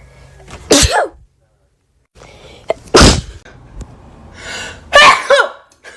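A person sneezing three times, each a short, sharp burst. The last sneeze ends in a pitched cry that falls in pitch, and a sharp intake of breath just before it.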